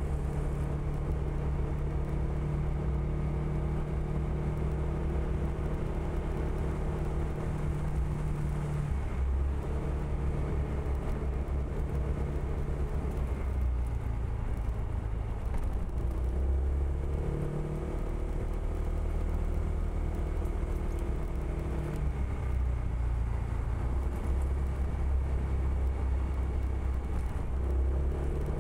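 Honda PCX160 scooter's single-cylinder four-stroke engine running under way, its note dropping and rising several times as the throttle opens and closes.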